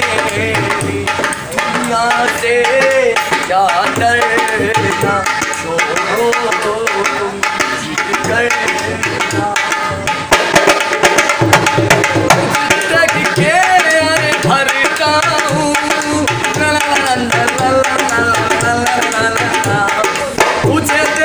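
Dholak, a two-headed barrel hand drum, played fast with both hands in a steady dense rhythm, with a man's voice singing over it.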